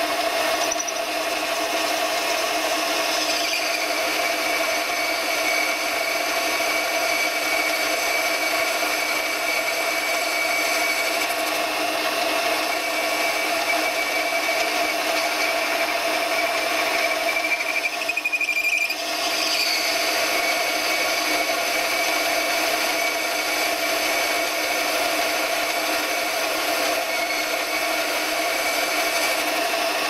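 Small benchtop metal lathe running steadily with a constant whine while a boring tool cuts into a brass fitting. The sound dips briefly about two-thirds of the way through, then carries on as before.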